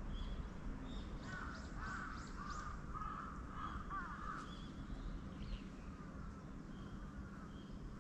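Crows cawing: a run of about six harsh caws in quick succession between about one and four and a half seconds in, with smaller birds chirping thinly and a steady low rumble underneath.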